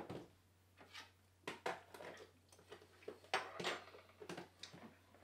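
Faint, scattered clicks and knocks of kitchen utensils and dishes being handled, with a sharper knock at the start.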